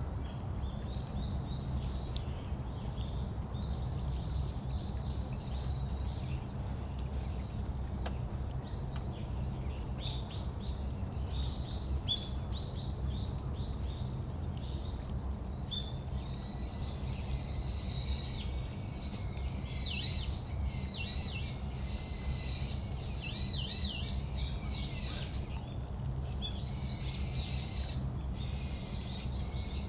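An insect, likely a cricket, trills steadily on one high pitch throughout, while small birds give many short, quick, falling chirps in the second half, over a low steady rumble.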